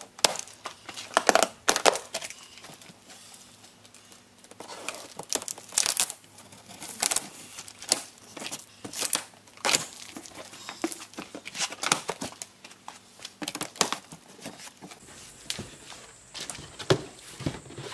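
A large cardboard shipping box being opened by hand: plastic strapping pulled off, flaps pulled apart, and cardboard and plastic packing crinkling and tearing in a string of short, sharp rustles.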